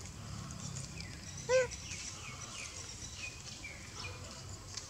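A single short animal call about a second and a half in, its pitch rising then falling. It is the loudest sound here, amid faint high chirps.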